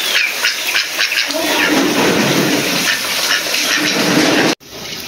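Heavy rain falling as a dense, crackling hiss. From about a second in, wavering pitched calls sound over it. The sound cuts off suddenly near the end.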